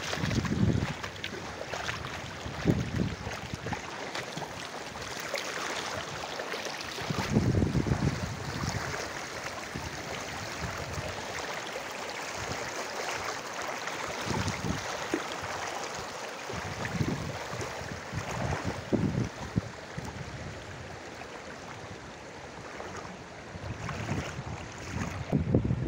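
Floodwater rushing across a flooded crop field in a steady hiss, with gusts of wind buffeting the microphone now and then.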